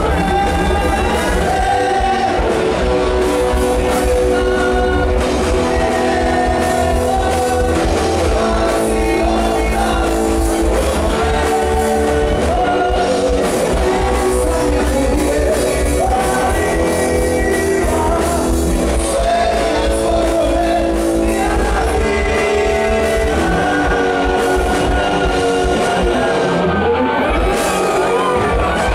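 Live rock band playing loudly: a man sings into a microphone over electric guitars.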